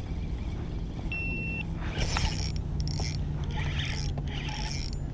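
A single short electronic beep from a GoPro action camera about a second in, followed by several brief bursts of rustling, scraping handling noise over a low steady hum.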